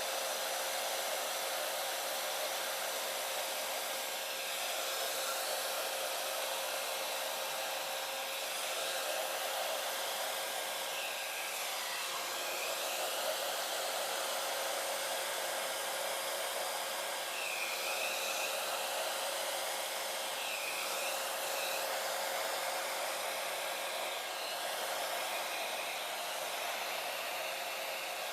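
A handheld blow dryer running steadily with a constant hum, blowing poured acrylic paint outward across a canvas.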